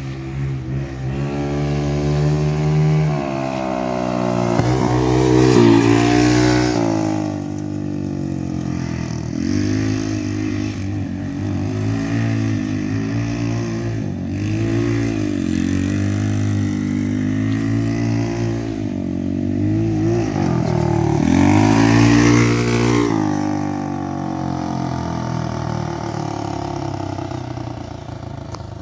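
GY6 150cc single-cylinder four-stroke scooter engine powering a go-kart, driving around and revving, its pitch rising and falling with engine speed. It gets louder as the kart passes close, about six seconds in and again about twenty-two seconds in.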